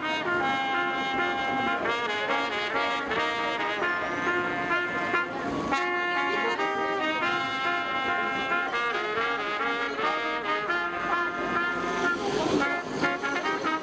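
Two trumpets playing a melody together in a street duet, the notes changing quickly. A brief rush of noise passes near the end.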